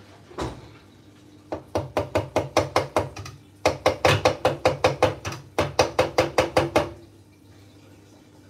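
Upturned glass blender jar knocked repeatedly against the pot to shake out the last of the blended pepper. The sharp knocks come in three quick runs of about six a second, after a single knock at the start.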